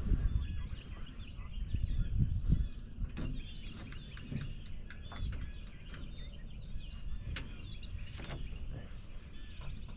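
Small birds chirping and twittering over a low rumble, with a few sharp knocks.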